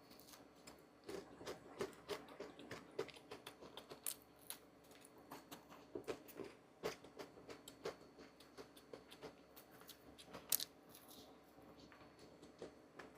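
Irregular light clicks and taps, a few a second, with one sharper click about ten and a half seconds in.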